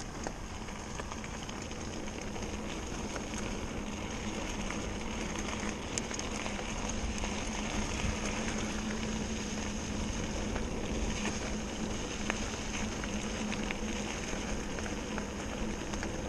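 Mountain bike rolling over a loose gravel track: steady crackling tyre noise, with scattered small clicks and knocks.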